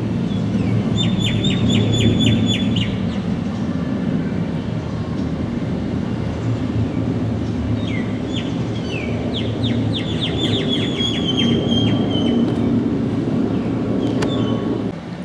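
Jet engine noise from an Emirates Boeing 777 passing overhead, a steady low rumble. A small bird sings quick runs of repeated chirps over it, about a second in and again from about eight to thirteen seconds in.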